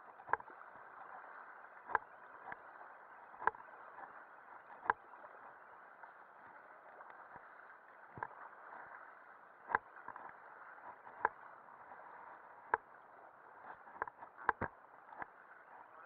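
River water rushing steadily, with sharp knocks from the rafters' paddles about every second and a half, several close together near the end.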